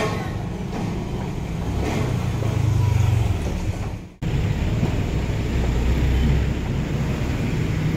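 Street traffic noise: road vehicles' engines running with a steady low rumble, swelling for a moment about two seconds in. The sound cuts out for an instant about four seconds in, then carries on.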